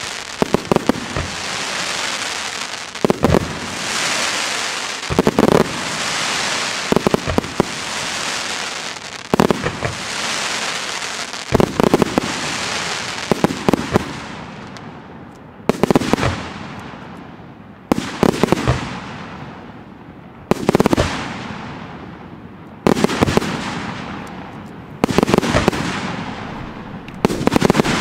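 Fireworks display: aerial shells bursting in a steady series about every two seconds, each a sharp bang or quick cluster of bangs followed by a fading hiss. In the first half the hissing tails run together into a continuous wash; later each fades out before the next burst.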